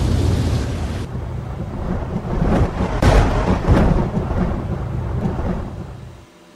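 Thunder rumbling, swelling to a loud crackling clap about three seconds in, then dying away shortly before the end.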